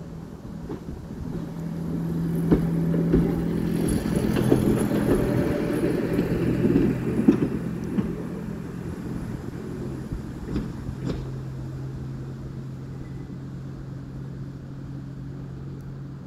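Class 139 Parry People Mover railcar running past and away: a steady engine hum that drops in pitch about four seconds in, loudest a few seconds in and fading as it draws off. A few sharp clicks of wheels over rail joints and points come through it.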